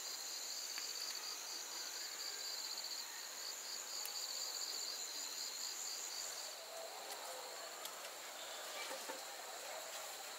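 Insects trilling: a steady high-pitched buzz with a second, pulsing trill beneath it that stops about two-thirds of the way through.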